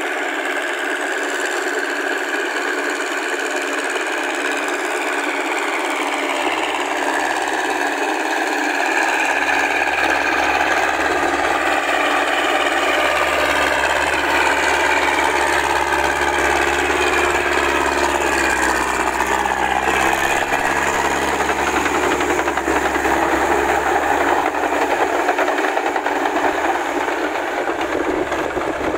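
Massey Ferguson tractor engine running steadily under load while it pulls a rotary tiller and steel cage wheels through a flooded rice paddy. It grows a little louder after about ten seconds, and its note dips and picks up again around the middle.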